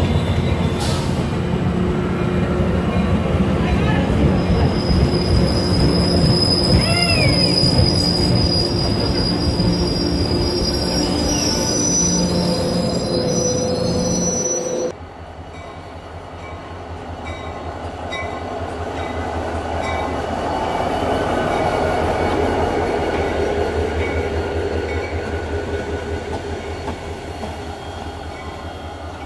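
An MBTA bilevel commuter train rolling past at speed, its wheels squealing high over the rumble of the cars. About halfway through it cuts off suddenly, giving way to a CSX diesel freight locomotive's low engine rumble that grows as it approaches and then eases off.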